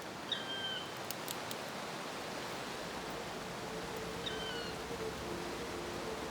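Steady rain hiss with a few drips ticking. A bird gives a short call twice, each sliding down and then holding, about four seconds apart, and low held music tones come in about three seconds in.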